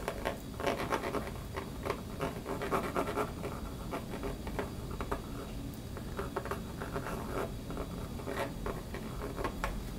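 Nozzle of a plastic glue bottle scraping and tapping on a 3D-printed plastic part as glue is run around its edge: a string of small, irregular scratchy clicks.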